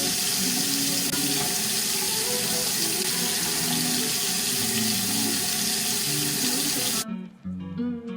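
Tap water running into a sink, a steady rush that shuts off suddenly about seven seconds in, with background music underneath.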